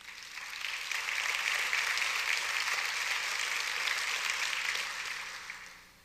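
Congregation applauding, building over the first second and dying away near the end.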